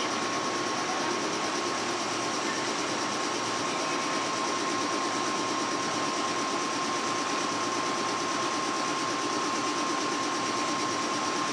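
A 113-series electric train standing at the platform, its on-board equipment running with a steady hum and a steady high whine.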